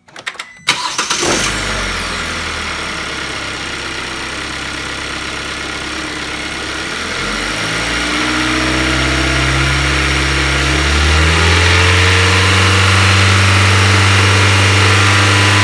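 A gasoline direct-injection four-cylinder car engine starts with a few clicks and a catch about half a second in. It runs steadily, then its revs climb over several seconds and hold at a raised speed, the accelerator held down by a pedal depressor. The throttle body is open to the air with its intake duct removed.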